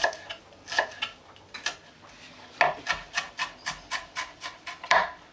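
A chef's knife chops onion into small dice on a plastic cutting board. A few separate knocks come first, then a quick run of about five chops a second from the middle, with a louder knock near the end.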